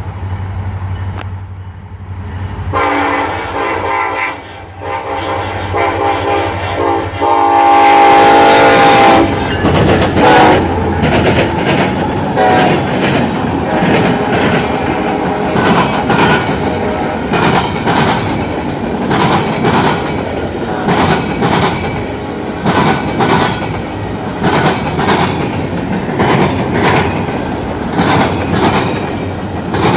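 Union Pacific locomotive's Nathan K5LLA air horn sounding a chord, starting about three seconds in with a short break and growing loudest just before the locomotive passes, about nine seconds in. The freight train's cars then roll by with a steady clickety-clack of wheels over rail joints.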